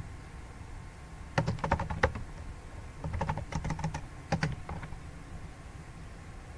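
Computer keyboard being typed in three short bursts of keystrokes within the first five seconds, then stopping.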